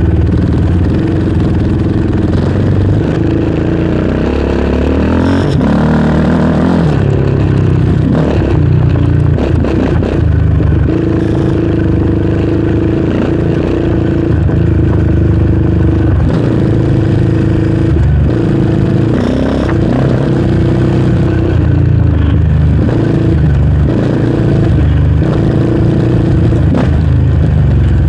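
Yamaha Raptor 700R sport quad's single-cylinder four-stroke engine running under way, its pitch rising and falling as the throttle is worked, with rattles and knocks from the machine over the rough dirt trail.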